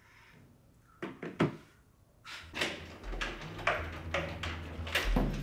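Front door of a flat being opened as someone comes in: two sharp clicks of the lock, then a run of knocks and bumps. A low steady drone sits underneath from about halfway through.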